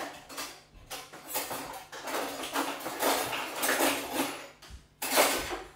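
Metal cutlery clattering as utensils are rummaged through in an open kitchen drawer, with a louder clatter about five seconds in.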